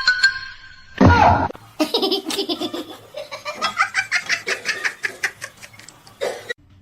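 A person laughing hard in a long run of quick, repeated bursts, stopping abruptly near the end, after a short loud sound about a second in.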